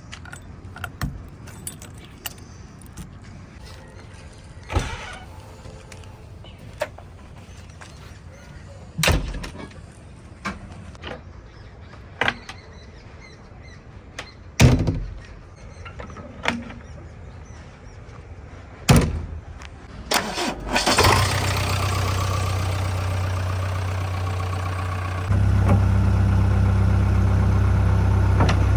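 Scattered separate knocks and clicks, then about two-thirds of the way in a diesel engine starts and runs steadily. A few seconds later its speed steps up and it runs louder.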